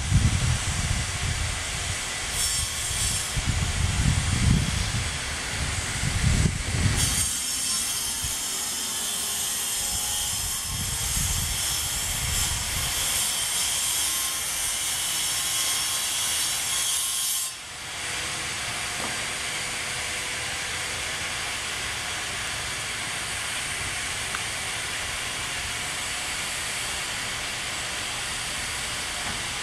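Steady rushing hiss. Low, uneven rumbling runs through the first seven seconds, a brighter hiss lasts from about seven to seventeen seconds in, and a steadier, plainer hiss follows.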